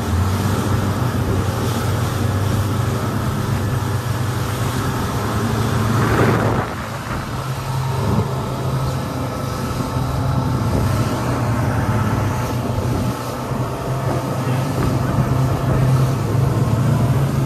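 Twin Yamaha 200 hp outboard engines running steadily at speed, a constant drone under the rush of spray and wind as the catamaran hull cuts through light chop. A brief louder rush of water comes about six seconds in.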